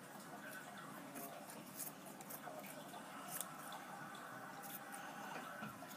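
Scissors snipping through a piece of foam, with faint, irregularly spaced snips.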